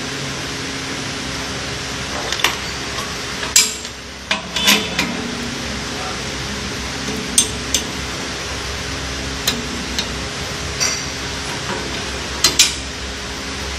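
Irregular metallic clicks and clinks as the orange clamping lever handles on a bubble remover's round metal door are turned and tightened to seal it, over a steady hum.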